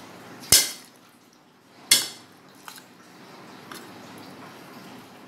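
A metal spoon clinking sharply twice against a stainless steel bowl, each clink ringing briefly, while mixing hilsa fish pieces in a thick poppy-seed and mustard paste. Softer taps and the spoon's scraping through the paste fill the rest.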